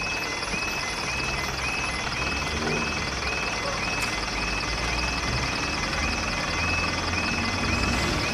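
Level crossing warning alarm sounding in good working order, a short tone with a quick rising start repeating about twice a second. A low engine rumble from waiting road traffic runs underneath.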